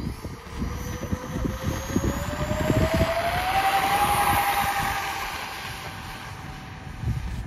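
Twin 50 mm electric ducted fans of a model Su-27 jet whining at takeoff power, the whine rising in pitch as the jet rolls down the runway, loudest a few seconds in, then fading as it lifts off and flies away. Wind buffets the microphone.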